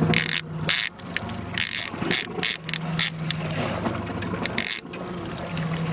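Fishing reel ratcheting in short, irregular spurts as a big chinook salmon is played on the line. Under it runs the steady low hum of the boat's motor.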